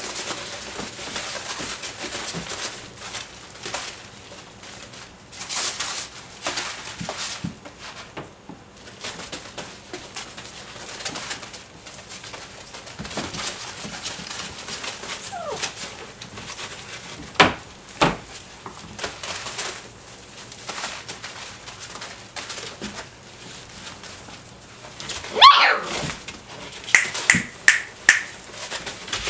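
Doberman puppies scrabbling and rustling in wood-shavings bedding, with soft puppy whimpers and grunts. About three-quarters of the way through a puppy gives a loud yelp, followed by a quick run of short, high squeaks.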